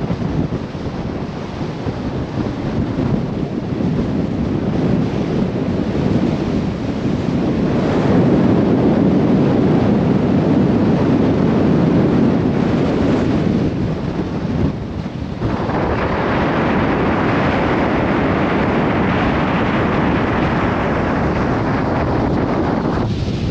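Strong gusting wind buffeting the microphone, a loud rushing noise that swells about eight seconds in and turns hissier after a brief lull about fifteen seconds in.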